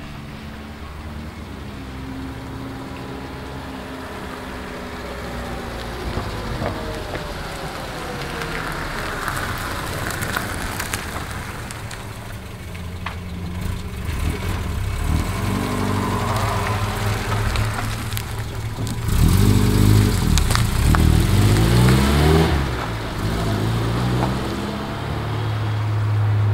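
Toyota Starlet KP62's four-cylinder engine running as the small car drives by, its pitch gliding up and down with the revs. About three quarters of the way in it revs up in several quick rising climbs, the loudest part.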